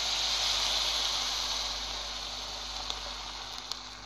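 Water poured into a hot pan of oil-fried vermicelli, hissing and sizzling as it hits the hot oil; the hiss slowly dies away.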